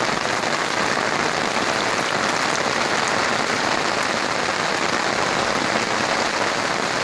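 Steady rain falling on bare muddy earth and leafy coffee bushes: an even hiss that keeps up without a break.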